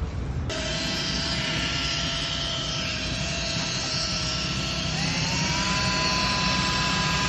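Electric power tool motor whining steadily, such as the drill or polisher used to sand and polish a headlight lens; its pitch rises about five seconds in as it speeds up.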